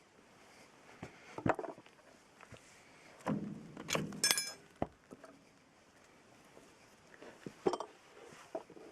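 Metal parts and tools being handled during a tractor axle repair: scattered knocks and clinks, with one ringing metallic clink about four seconds in.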